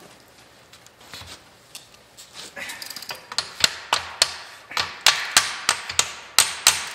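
Hammer blows on steel at the end of a Model A Ford front leaf spring, knocking at the spring shackle to work it loose. Light taps at first, then from about three seconds in a run of sharp, ringing metal strikes, two to three a second, getting louder.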